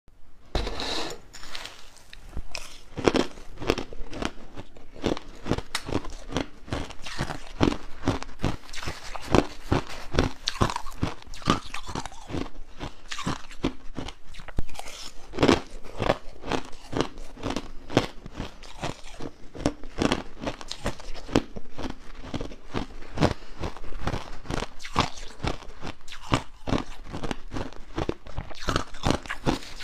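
Crushed ice being chewed, close to a lapel microphone: dense, irregular crunching, several crunches a second, carrying on steadily.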